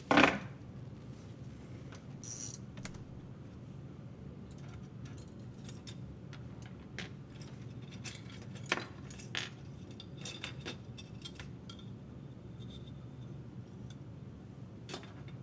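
Small plastic model-kit parts on their sprues clicking and rattling as hands sort and turn them over on a tabletop, with one louder knock at the very start and scattered light clicks after it.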